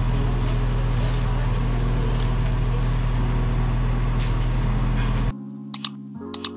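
A steady low machine hum that cuts off abruptly about five seconds in. It is followed by the mouse clicks and bell ding of a subscribe-button animation as soft music notes begin.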